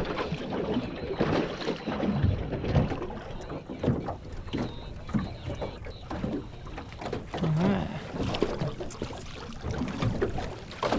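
Water lapping against a small aluminium boat's hull, with irregular knocks and rustles from gear moving in the boat.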